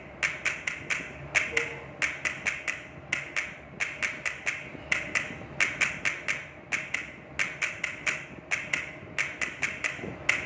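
Background music made of sharp, dry percussive taps in a quick, regular rhythm, several hits a second in repeating clusters.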